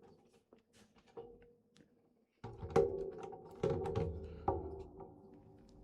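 Plastic LEGO pieces being handled on a table: a few light clicks, then three knocks about a second apart starting two and a half seconds in.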